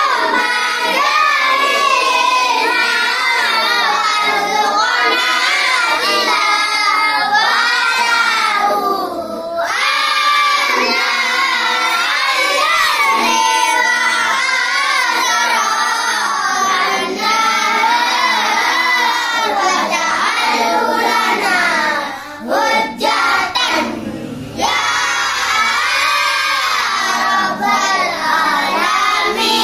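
Young children chanting a prayer together in a loud, sing-song unison, hands raised in supplication. The chant runs almost without pause, thinning briefly about three-quarters of the way through.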